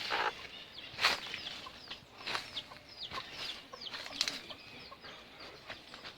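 Newly hatched chicks peeping in many short, high, falling chirps, with a mother hen's clucks and a few louder sudden scratchy sounds about 1, 2.4 and 4 seconds in.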